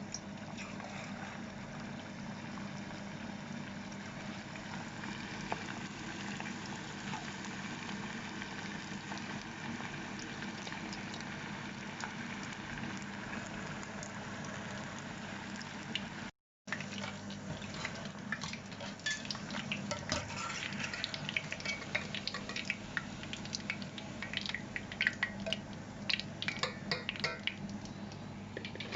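Battered chicken pieces frying in hot oil in a pan: a steady sizzle. After a brief cut about two-thirds of the way in, sharp crackles and pops come thicker and faster.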